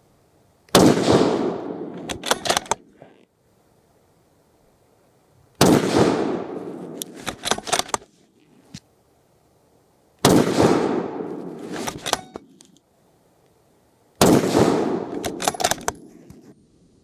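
Four rifle shots from a TRX Bronco Hunter bolt-action rifle in 6.5 Creedmoor, about four to five seconds apart, each ringing out and dying away over a second or two. About a second after each shot comes a quick run of sharp clicks as the bolt is worked to chamber the next round.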